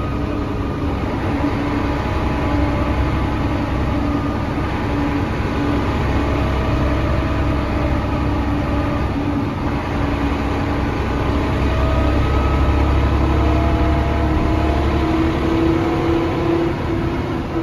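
Cabin sound of a 1999 Mercedes-Benz O405NH bus under way: the rear-mounted diesel engine rumbles steadily under the whine of its ZF automatic gearbox and hub-reduction rear axle. It pulls a little louder about two-thirds of the way in.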